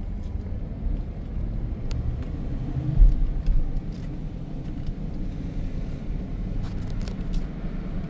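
A vehicle driving slowly, heard from inside as a steady low rumble of engine and tyres, with one louder low thump about three seconds in, like a bump in the road.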